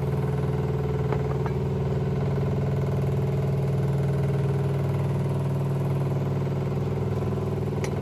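Oil-fired boiler's fuel oil pump running with a steady low hum. A couple of faint taps come about a second in.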